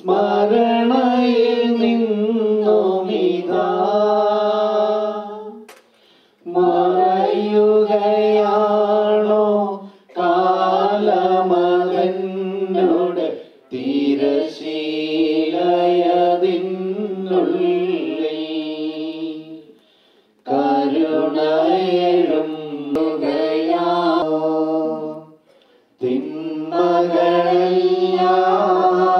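Voices singing a slow hymn, with long held notes in about six phrases of three to six seconds each, separated by short breaks.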